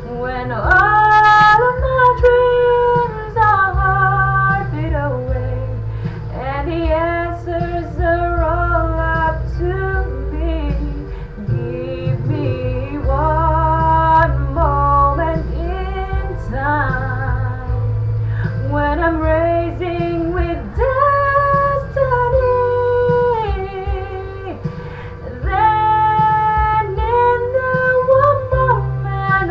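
A song: a woman sings long held notes over instrumental backing with a strong bass line.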